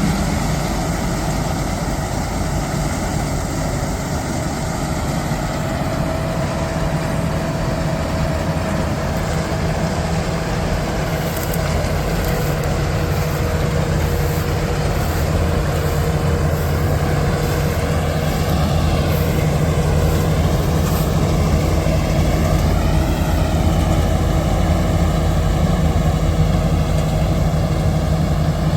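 Combine harvester running steadily, its engine note even throughout, with a higher whine wavering up and down in pitch midway.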